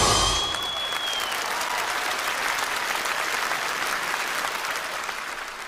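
Large concert-hall audience applauding at the end of a choir song. The last of the music stops within the first half-second, and the clapping fades away near the end.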